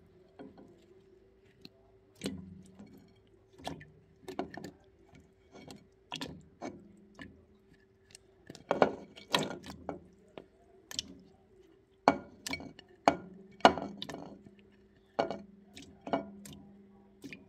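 Chunks of raw peeled potato dropped one by one into a stainless steel pot of cold water, each landing with a plop and a knock against the pot, irregularly, about one to two a second and busiest in the middle. A faint steady hum runs underneath.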